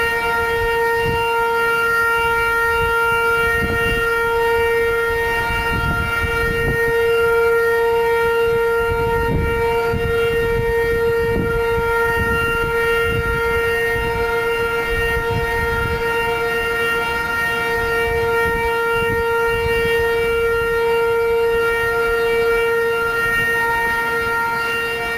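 Civil defence air raid siren sounding one steady high tone, held level without rising and falling. A steady tone like this, instead of the usual up-and-down wail, is taken as the signal that the air raid drill is over.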